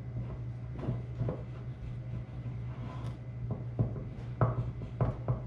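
Steel parts of a planter row marker linkage clinking and knocking as they are handled and fitted together, about seven short knocks, the loudest about four and a half seconds in, over a steady low hum.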